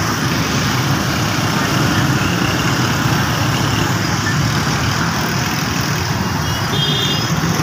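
Busy city road traffic: motorcycle and auto-rickshaw engines running and passing close by, a steady loud mix of engine and road noise, with a brief faint high tone near the end.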